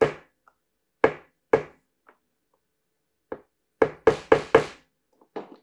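Sharp wooden knocks as a screw is tapped into a small wooden block to start it. About nine strikes come in irregular groups, with a quick run of four about four seconds in.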